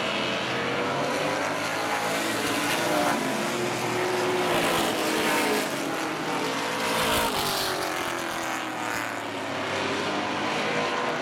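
Street stock race cars racing, several engines heard at once, their notes swelling and dropping in pitch as cars go past.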